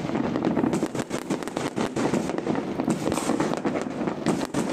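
Fireworks and firecrackers going off in a dense, irregular barrage: many overlapping sharp bangs and crackles, several a second.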